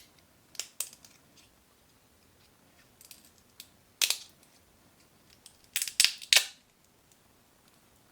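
A series of short, sharp snips and clicks, like a small cutting tool closing, coming in small clusters: two about half a second in, one loud one around four seconds in, and three close together around six seconds in.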